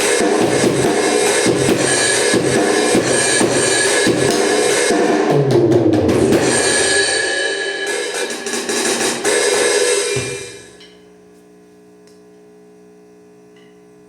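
Seven SD-7000 electronic drum kit playing a beat of kick, snare and cymbals through a bass amplifier, with a descending tom fill about halfway through. The drumming stops and dies away about ten seconds in, leaving the amplifier's steady mains hum.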